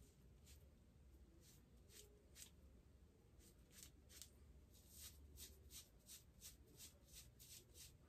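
Faint strokes of a hand razor scraping through a month's growth of beard: short strokes, about two or three a second, unevenly spaced.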